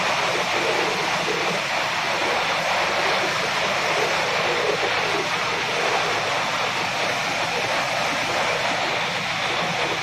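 Steady, even din of a running corn flakes production line: machinery noise with flakes pouring down a metal chute onto a conveyor.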